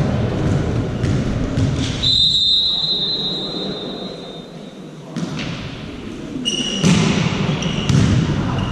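A referee's whistle blows one long steady blast about two seconds in, the usual signal to serve. From about five seconds a volleyball thuds several times as it is bounced on the court floor, loudest near the end. Players' voices can be heard at the start.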